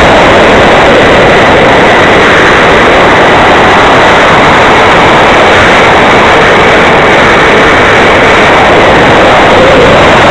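70 mm brushless electric ducted fan of an RC jet running steadily in flight. Through the plane's onboard camera it is a loud, even rush of fan and airflow noise with a faint steady whine.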